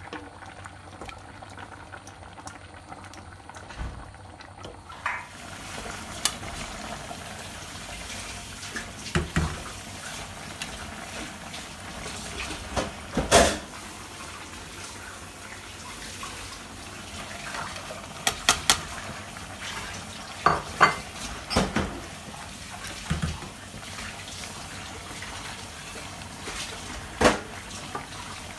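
Curry simmering in a stainless steel pot, with scattered sharp clinks and knocks of a plate and utensils against the pot as sliced potatoes are tipped in and stirred.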